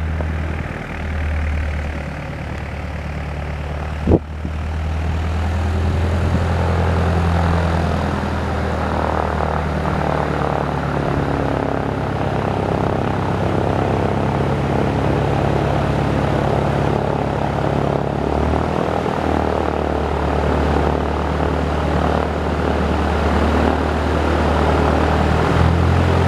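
Piston engines of small single-engine Cessna propeller airplanes running, a steady low drone. A single sharp knock about four seconds in.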